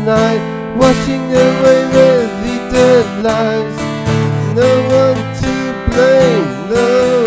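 Acoustic guitar strummed in a steady rhythm, with a melody line that bends and slides in pitch over it, in an instrumental passage of a song.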